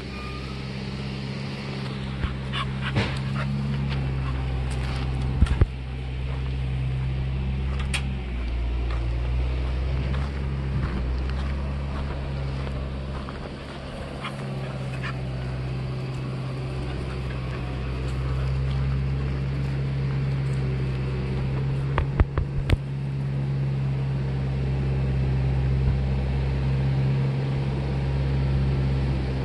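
Small dogs playing and making dog sounds over a steady low hum, with a few sharp knocks about five and twenty-two seconds in.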